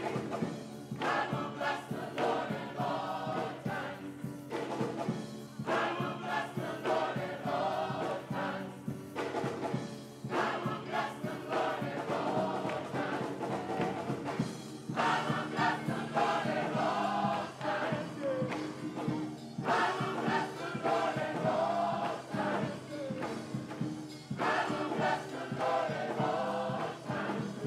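Gospel choir singing with instrumental accompaniment, in sung phrases broken by short pauses over steady held chords.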